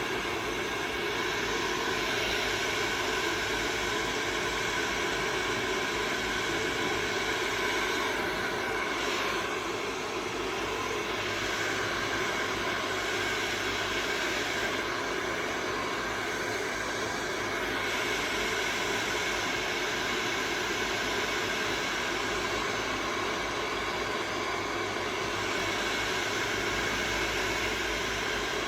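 Hand-held hair dryer running steadily while drying wet hair: rushing air with a steady motor whine, its tone shifting briefly a couple of times as it is moved.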